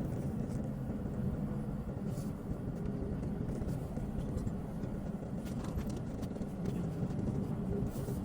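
An engine running steadily, a low, even hum with no change in pitch.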